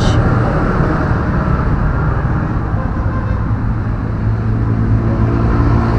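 Steady low rumble with a hum under it, unchanging and without distinct knocks or clicks.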